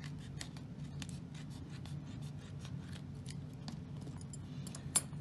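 Scissors making a run of quick small snips, trimming double-sided adhesive tape along the edge of a plastazote foam piece, with one sharper click near the end.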